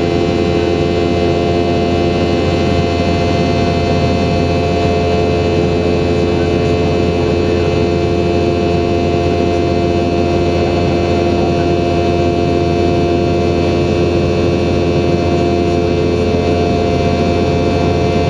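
Boeing 717-200's Rolls-Royce BR715 turbofan engines running steadily: a constant drone with a low rumble and several steady whining tones, holding level throughout.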